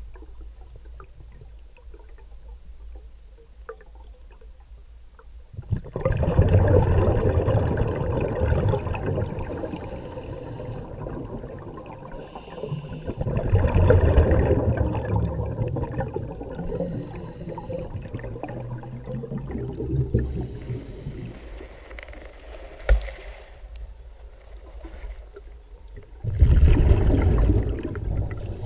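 Scuba diver's regulator breathing, heard underwater: bursts of exhaled bubbles about every six to seven seconds, with brief faint hissing between them.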